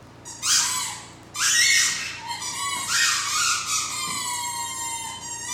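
Ten-month-old Great Dane howling at a favourite toy: two rising, high-pitched howls in the first two seconds, then one long howl sliding slowly down in pitch.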